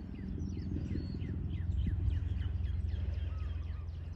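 Many birds chirping, with short downward-sliding calls several times a second, over a steady low rumble.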